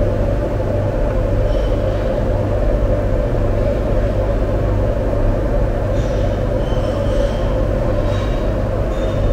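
A loud, steady mechanical hum and rumble of kitchen equipment, with light clinks of stone dizi pots being handled a few times, mostly in the second half.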